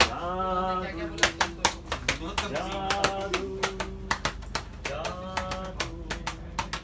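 A Hindi song: a voice singing long, wavering notes over a quick, steady clicking beat of about four clicks a second.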